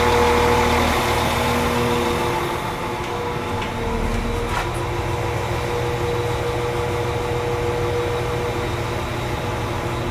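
Diesel multiple unit's engine idling with a steady hum while the train stands at a station stop, heard from inside the carriage; the low rumble shifts about three to four seconds in.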